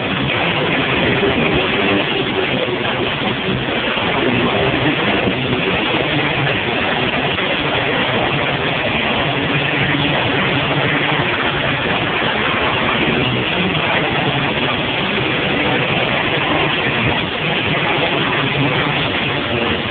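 Live rock band playing loud, with electric guitar, picked up by a small camera microphone as one dense, steady wash of sound.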